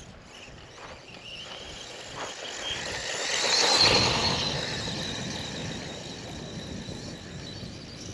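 HBX Destroyer 1/16 RC truck's small electric motor whining as it is driven, the whine climbing slightly in pitch and swelling to its loudest about four seconds in before easing off, with a rush of noise rising and falling with it.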